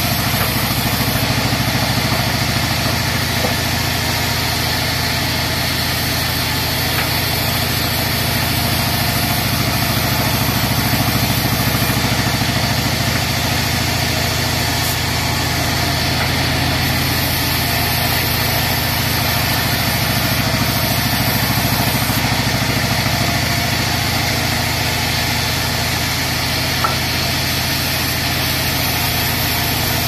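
A 42-inch bandsaw mill running steadily while it rips a teak log lengthwise, a constant mechanical drone that doesn't change throughout.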